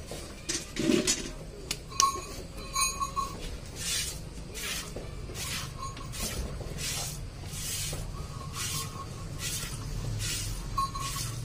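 Hand-milking a water buffalo into a steel bucket: milk squirting from the teats in short hissing jets, a regular rhythm of about one to two squirts a second.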